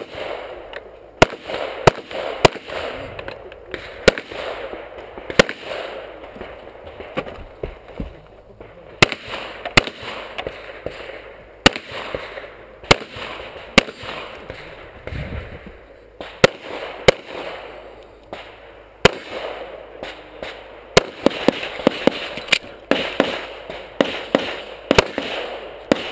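A semi-automatic pistol fired over and over through a practical-shooting stage: shots mostly in quick pairs, with short pauses between groups of targets and a faster run of pairs about half a second apart near the end.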